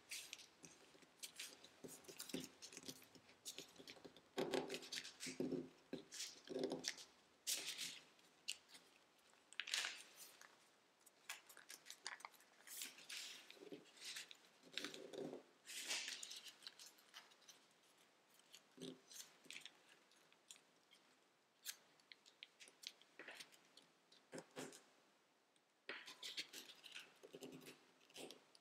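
Tissue-foil origami paper crinkling and rustling as it is folded and creased by hand, in short irregular bursts, quieter for a few seconds past the middle.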